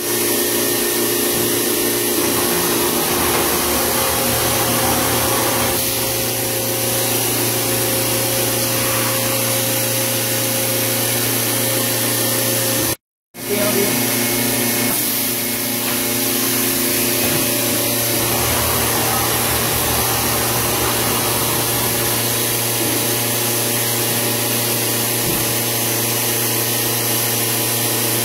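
Large industrial thermoforming (vacuum-forming) machine running: a constant motor hum with a steady hiss, unchanging in level, with a brief break about halfway through.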